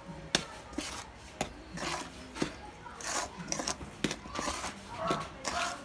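Wooden spatula scraping and knocking against a metal mixing bowl while folding flour into a wet cookie batter: irregular light knocks with soft scraping swishes between them.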